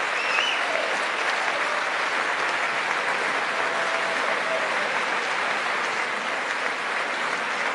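Sustained applause from a large standing crowd, an even, steady clapping that fills a big hall.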